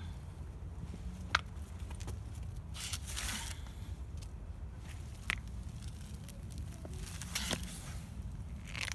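Footsteps on brick steps with scattered sharp clicks and a brief rustle a few seconds in, over a low steady rumble.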